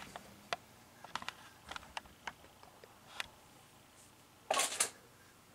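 Scattered light clicks and taps of hands handling small electrical parts and tools at a light fixture box, with a brief louder rustling scrape about four and a half seconds in.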